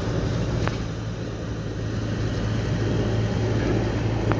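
Steady low engine hum and rumble of vehicles and construction machinery at a large building site, with two faint clicks, about a second in and near the end.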